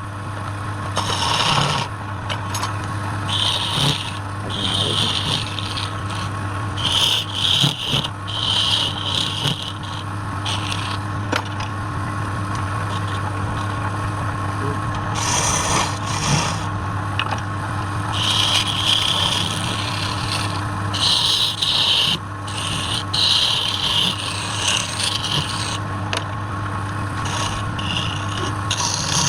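Wood lathe running with a steady motor hum while a hand-held turning tool scrapes and cuts the spinning wood in irregular short passes.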